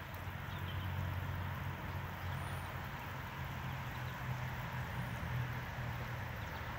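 Light rain falling on shallow water, a steady soft hiss, over a steady low hum.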